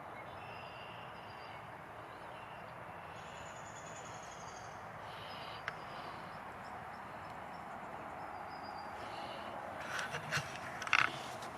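Quiet outdoor woodland ambience: a steady hiss of background noise with faint, short high chirps scattered through it. A single sharp click comes about halfway through, and a few brief crackles near the end.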